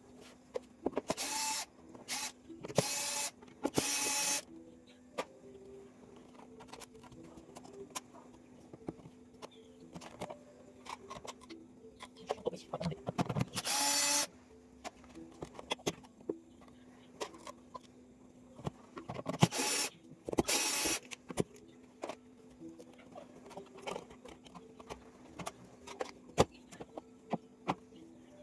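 A small power tool, of the cordless-screwdriver kind, runs in short bursts of about half a second, three close together early on and three more later, amid scattered clicks and taps of parts being handled, over a steady low hum.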